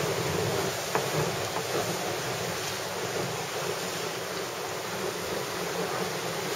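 Steady rush of wind and water as a Class 9.50 sailboat sails through rough, whitecapped sea: wind buffets the microphone and the sea washes along the hull, with a few faint knocks from the boat.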